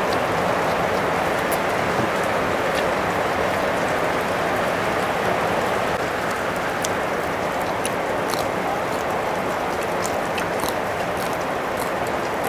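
A steady rushing hiss, like rain, holds level throughout, with scattered faint clicks from chewing.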